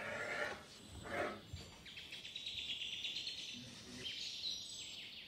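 A kitchen knife slicing through a thin sheet of rolled noodle dough against the tabletop: two short scraping strokes in the first second or so. Faint rapid high chirping follows through the rest.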